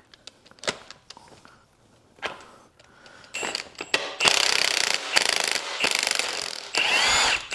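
A few light tool clicks, then from about three seconds in roughly four seconds of loud mechanical rattling from a power tool backing out an intake manifold bolt on a V8, its motor pitch sweeping near the end.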